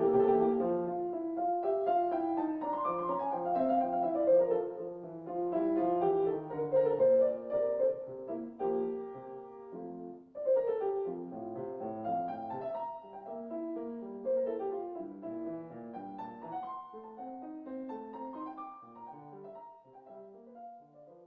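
Background instrumental music made of a run of distinct notes, with a brief drop about ten seconds in, fading out toward the end.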